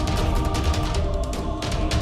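Loud music with fast, heavy drumming, held chords and strong bass.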